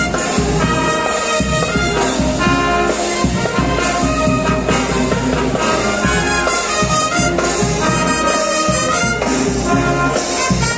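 Marching band playing live: a brass section of sousaphones, mellophones and trumpets with drums, playing a loud, steady march tune of held brass notes.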